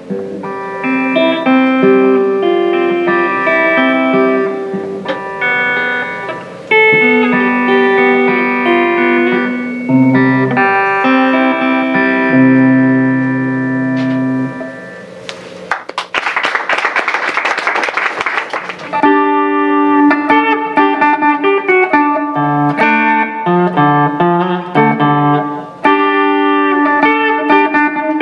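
Electric guitar played clean, picking a melody of single notes that fades out about fifteen seconds in. A few seconds of dense noise with no notes follow, then electric guitars start a rhythmic rock riff of chords over low notes.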